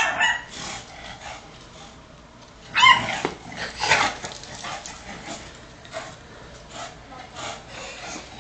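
A small dog yipping during rough play. There is a sharp yip at the start and another about three seconds in, with softer yips and scuffling in between.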